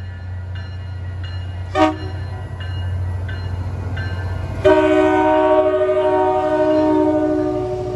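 MBTA GP40MC diesel locomotive departing with its engine rumbling and a bell ringing in a steady rhythm. It gives a short horn toot about two seconds in, then sounds a long, loud chord horn blast from about five seconds in to the end.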